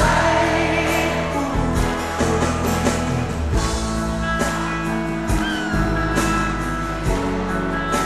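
Live pop band playing a love song, with voices singing a held, wavering line over sustained bass and a light beat.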